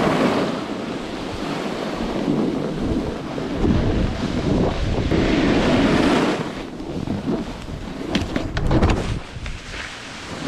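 Wind buffeting a camera microphone over the hiss of a snowboard sliding and scraping on snow, in rising and falling swells, with a few sharp scrapes or knocks near the end.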